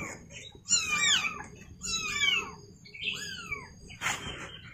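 Kittens mewing: about three bouts of high, thin cries that rise and fall in pitch, several voices overlapping. A short knock or rustle near the end.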